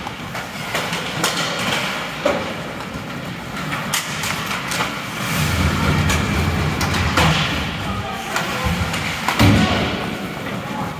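Ice hockey play in a rink: skate blades scraping the ice and sticks clacking on the puck, with scattered sharp knocks and a heavier run of thuds about halfway through, like bodies or the puck hitting the boards.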